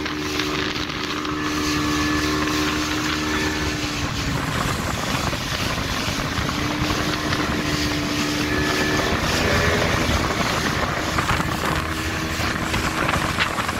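Speedboat engine running at speed, a steady hum with a slight shift in pitch now and then, over the rushing of water and spray from the boat's wake.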